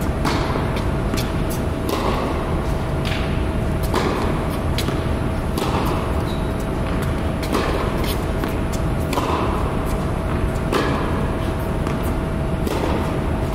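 Tennis ball struck back and forth by rackets in a rally on an indoor court, a sharp hit every one and a half to two seconds, each echoing around the hall. Under the hits is a steady low hum with a faint constant tone.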